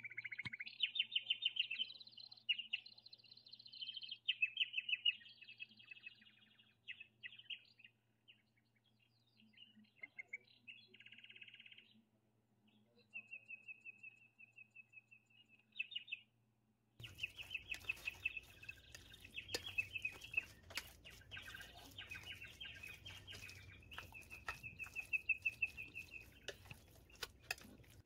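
A songbird chirping and trilling in short, repeated high phrases, with one long even trill about halfway through. From about two-thirds of the way in, a run of sharp clicks sounds along with the birdsong.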